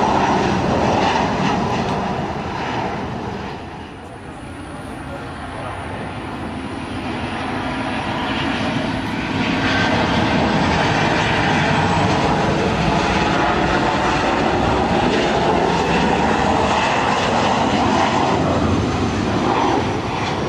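Jet engines of Lion Air Boeing 737s (CFM56 turbofans) passing low on landing approach. One fades out in the first few seconds, then a second builds from about four seconds in, stays loud and steady through most of the rest, and falls away near the end.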